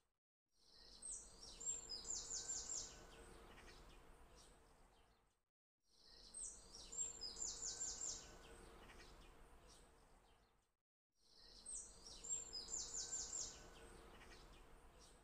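A short birdsong recording looped over and over. Each pass holds a few high chirps and then a quick run of notes, over a faint steady hiss, and is cut by a brief dead silence before it starts again, about every five seconds.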